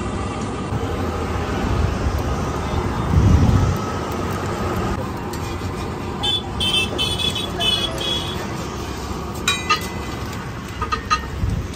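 Steady street traffic noise, with a heavier vehicle swelling past about three seconds in and a few short high-pitched toots around six to eight seconds in. Near the end come a few sharp metallic clicks from a steel spatula on the flat iron griddle.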